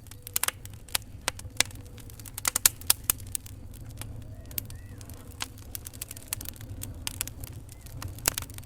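Wood fire in a fireplace crackling, with irregular sharp pops and snaps over a steady low rumble of the flames; a cluster of louder pops comes a little after two seconds in, and another near the end.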